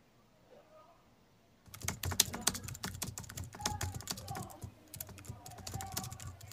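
Handheld scientific calculator's keys clicking in a quick, uneven run as numbers are punched in, starting a little under two seconds in.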